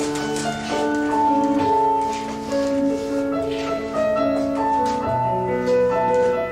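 Piano music playing: slow, sustained chords with a melody on top, played as bridal processional music.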